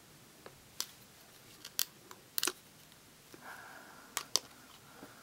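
Sharp clicks and light taps of a small metal-framed doll purse being handled while its latch clasp is worked, about half a dozen clicks, two of them in quick succession about four seconds in, with a brief soft scrape between.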